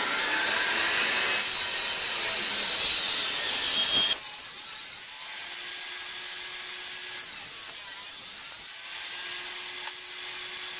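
Table saw blade cutting through a walnut board on a crosscut sled, a loud, harsh sawing noise for about four seconds. The noise then drops abruptly as the cut finishes, leaving the saw running free with a quieter steady hum.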